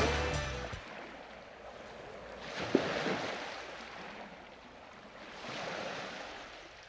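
Waves washing in two soft swells about three seconds apart, after music fades out within the first second.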